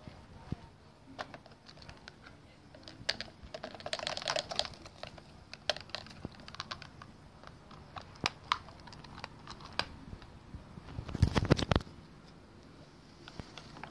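Plastic toy garbage truck being handled: scattered sharp plastic clicks and taps, a short scrape about four seconds in, and a louder rattling clatter near the end.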